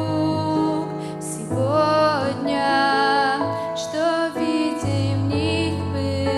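Slow, gentle hymn music of held notes, with a few sliding notes about two and four seconds in.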